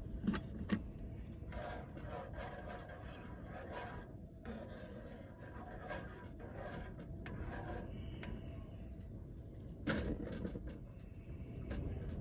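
Wind buffeting the microphone as a steady low rumble, with a few light knocks and clicks, a pair about a third and three quarters of a second in and another about ten seconds in.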